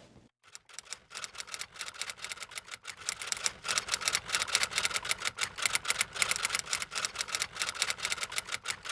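Rapid, irregular mechanical clicking, a dense clatter of sharp taps like keys striking, used as a sound effect under scrolling on-screen text. It starts about a third of a second in.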